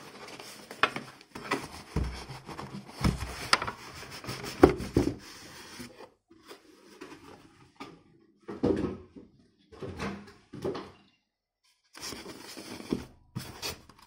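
Unboxing handling sounds: a cardboard box and styrofoam packing being worked apart, with rubbing and scraping and several sharp knocks as the box and foam bump the table in the first few seconds, then quieter scraping and rustling as the foam lid is lifted away.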